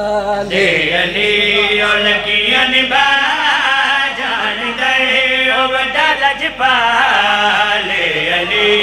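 Men chanting a devotional Punjabi qasida in praise of Ali into microphones over a PA: a lead male voice carried without pause, with other men's voices joining in.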